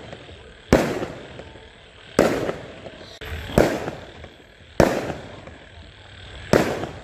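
Fireworks bursting overhead: five sharp booms, roughly a second and a half apart, each trailing off in a fading echo.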